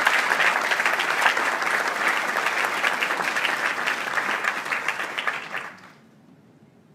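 Audience applauding in a large hall, a dense spatter of many hands clapping that dies away about six seconds in.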